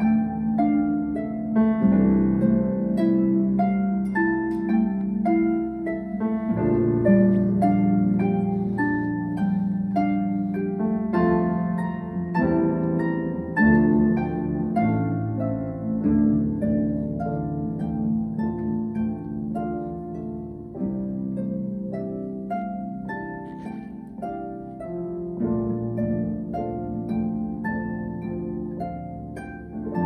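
Concert harp playing a flowing run of plucked notes over low bass notes that change every few seconds.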